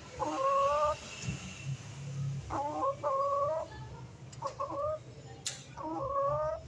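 A chicken calling: about five drawn-out, fairly level-pitched vocalizations, each around half a second to a second long, with short gaps between them.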